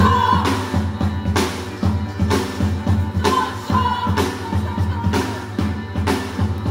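Live band music: double basses, drum kit, keyboard and acoustic guitar start a song together with a steady beat and heavy bass, with women singing over it.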